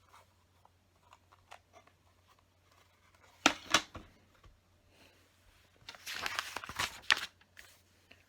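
Small plastic LEGO pieces being handled and rummaged through: scattered light clicks, with two short bursts of clattering, about a third of the way in and again past the middle.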